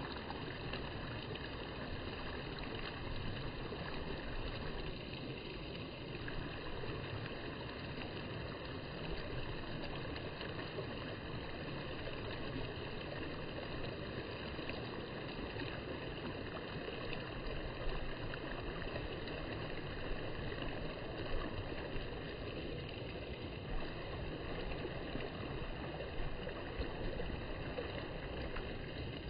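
Steady rushing noise with a few faint knocks scattered through it.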